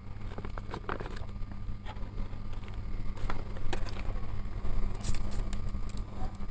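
Small handling noises as bamboo satay skewers and food are handled: light clicks, taps and scrapes, a little busier about five seconds in, over a steady low hum.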